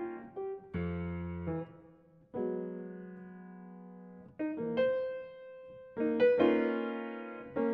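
Solo piano music: slow chords struck one after another, each left to ring and fade.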